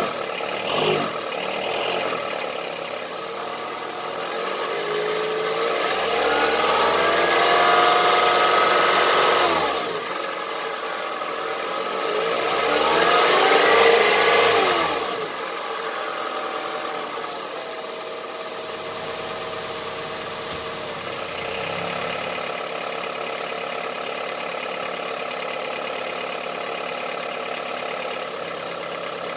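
Honda CR-V III 2.4 four-cylinder petrol engine idling, revved up twice and dropping back to idle, then idling steadily. The owner says the engine has a diesel-like knock.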